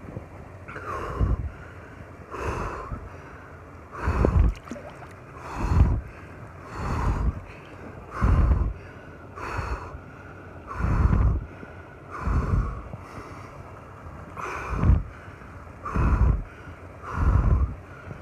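A man breathing hard and evenly while sitting in ice-cold river water, one deep breath in or out about every second and a half, each close and loud on the microphone. The heavy, paced breathing is a response to cold-water immersion.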